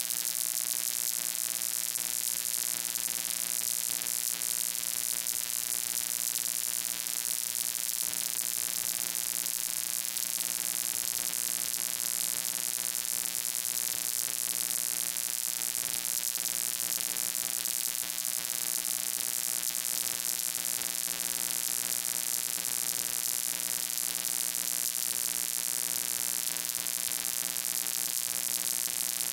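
Steady electrical hum and buzz under a strong hiss, unchanging throughout.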